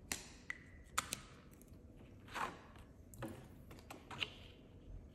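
Faint desk-handling sounds: a scatter of sharp clicks and taps, several in the first second, and a soft rustle about two and a half seconds in, as a plastic cash binder, paper tracker cards and a pen are handled.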